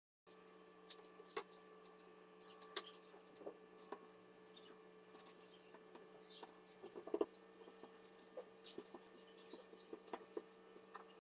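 Faint small clicks, taps and squishes of hands and a wooden rolling pin working a thin sheet of oiled dough on a countertop, over a steady low hum. There is a short run of sharper clicks about seven seconds in.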